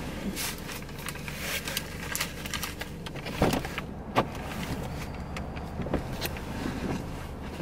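A paper takeout bag and a drink cup rustling and knocking as they are handled inside a car, with a few louder knocks near the middle, over a steady low hum from the car.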